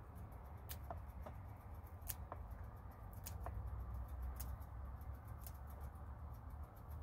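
Faint crisp clicks and rustling as a marigold flower head is pulled apart by hand and its petals plucked off, a few sharp clicks about a second apart, over a low steady hum.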